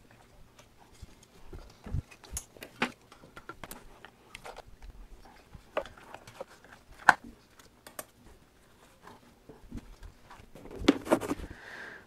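Scattered clicks and knocks of hard plastic parts being handled as a diesel air heater is put back together: wiring pushed into place and the plastic outer housing fitted over the internals. The sharpest knock comes about seven seconds in, with a cluster of taps near the end.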